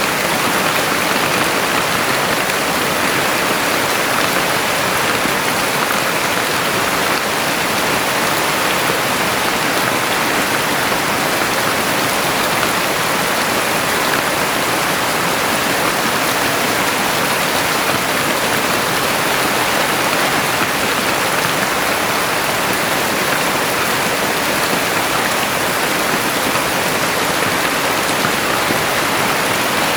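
Heavy rain falling steadily as a dense, unbroken hiss.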